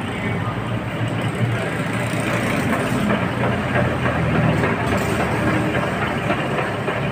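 Metal lathe running steadily while it cuts a thread into a steel shaft.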